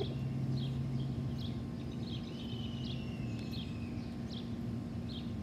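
A small bird giving short high chirps about twice a second, with one longer, slowly falling whistle in the middle, over a steady low hum.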